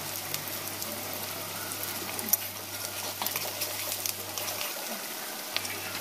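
Sliced onions frying in oil in a metal kadai: a steady sizzle with small crackles, and a few clicks of a metal spatula against the pan.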